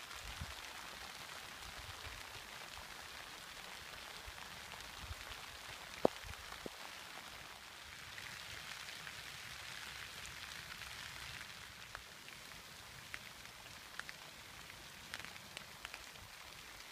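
Light rain falling steadily, a soft even hiss with scattered sharp ticks, the loudest about six seconds in.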